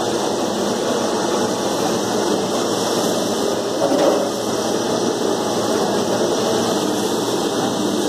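Rapeseed processing machinery running steadily: a roaster drum turning on its shaft and screw conveyor driven by electric motors, a constant dense mechanical noise with a faint hum. A brief louder swell comes about four seconds in.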